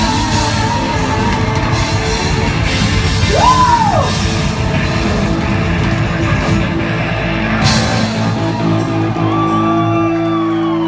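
Live rock band playing loud, with electric guitar, saxophone, keyboard and drums, and yelled vocals over the top. About seven seconds in the low end and drums thin out, leaving held notes ringing in the hall.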